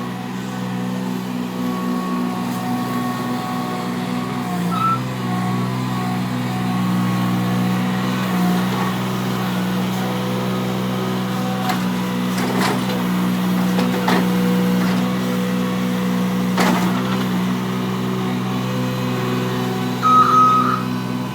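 Skid steer engine running steadily while it works dirt, with a few sharp knocks partway through. Its reversing beeper starts sounding near the end.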